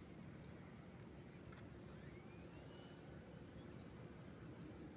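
Near silence: faint outdoor background noise with a faint steady hum and a few faint high chirps.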